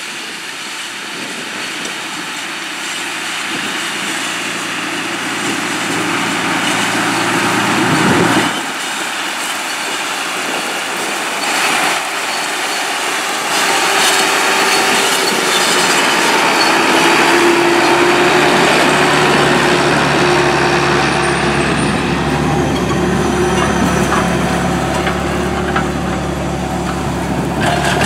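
John Deere 8300 tractor's six-cylinder diesel engine running under load as it pulls a seed drill, getting louder as it comes near and then staying steady while it passes close by.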